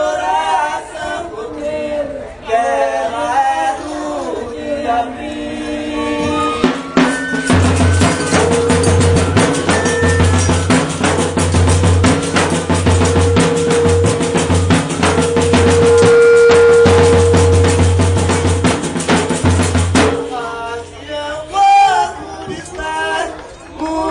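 Terno de Reis folk group: male voices sing a verse, then a bass drum and pandeiro break into a fast, dense beat under one long held note for about twelve seconds, and the singing comes back near the end.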